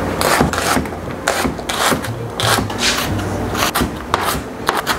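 Chef's knife mincing a shallot on a plastic cutting board: a quick, irregular run of knife strikes against the board, about three a second, with the crunch of cutting through the shallot.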